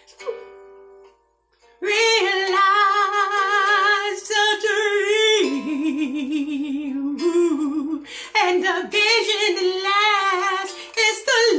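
A woman singing a wordless run of loud, long-held notes with strong vibrato, starting about two seconds in after a few soft plucked-string notes from the backing track.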